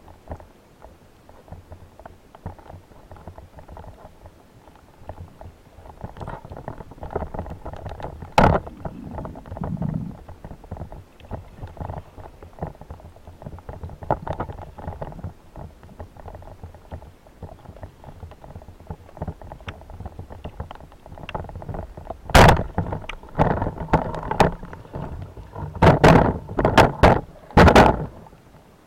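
Underwater noise picked up by a camera on a speargun during a breath-hold spearfishing dive: a low, uneven rumble of water movement with faint crackling, and one sharp knock about eight seconds in. Over the last several seconds, as the diver comes up to the surface, a run of loud knocks and rushes of water.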